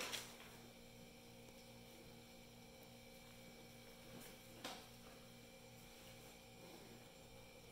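Near silence: room tone with a faint steady electrical hum and one soft tap about four and a half seconds in.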